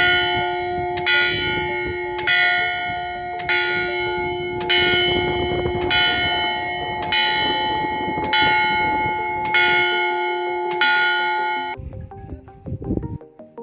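Church tower bell struck by its hammer at an even pace, about once every 1.2 seconds, about ten strikes, each one ringing on into the next. It is heard from directly beneath the bell and is loud. It is striking the hour or half hour. The strikes stop abruptly near the end.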